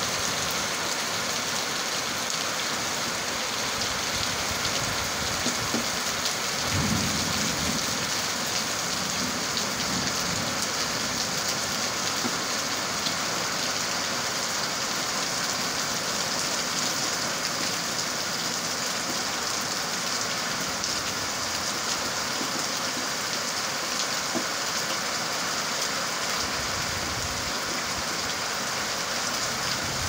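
Heavy rain pouring steadily in a windy downpour, an even rushing hiss, with low rumbles about 7 seconds in and again near the end.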